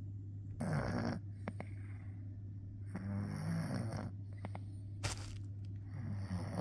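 A sleeping domestic cat snoring: three breathy snores, each about a second long, roughly every two and a half to three seconds. A brief sharp click falls between the second and third, over a steady low hum.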